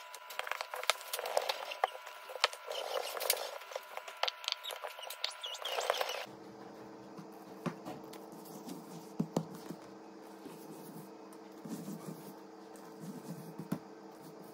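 A thin sheet of rolled-out dough rustling and crackling with many small clicks as it is unrolled from a rolling pin and spread over a table. About six seconds in, the sound drops to a quieter stretch with a steady low hum and a few faint taps.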